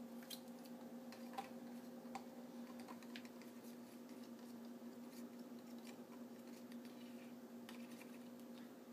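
Scattered light clicks and taps of plastic bottles and test tubes being handled on a counter, over a faint steady hum.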